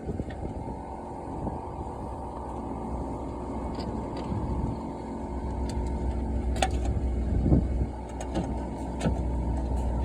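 A steady low mechanical rumble, with a few light clicks and knocks in the second half.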